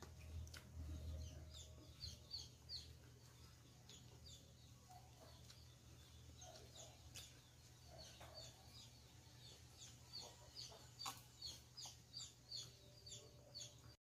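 Faint chickens calling: many short, high, falling chirps throughout, coming in quick runs near the end, with a few lower clucks in the middle. A few scattered faint clicks and a low steady hum lie underneath.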